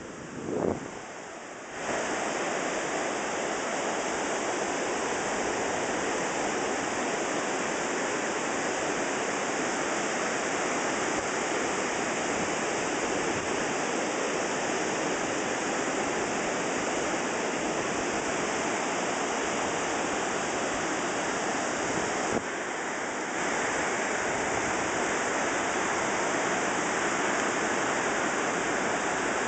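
Steady rushing of surf on a beach, an even wash of noise that comes up about two seconds in and dips briefly near the end.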